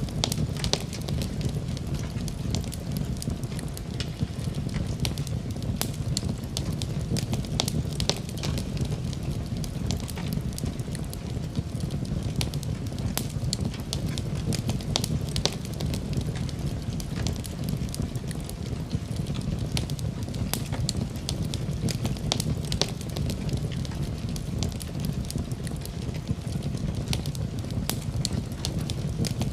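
Wood fire burning in a fireplace: a steady low rumble of flames with frequent sharp crackles and pops scattered throughout.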